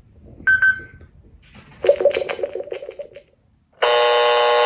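Electronic lie detector game toy giving its verdict: a short beep about half a second in, a warbling electronic tone for about a second, then from about four seconds a loud, steady buzzer, the signal for a lie.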